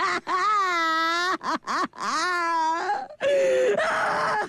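A woman's voice moaning in distress: two long, drawn-out wails, each dipping and rising in pitch, then a rougher, noisier groan in the last second or so.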